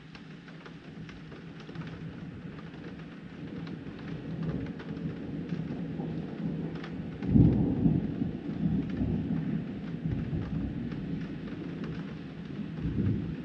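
Thunder rumbling over steady rain. The thunder builds for a few seconds to a loud peak about halfway through, rolls on, and swells again near the end, while raindrops tick against the window glass.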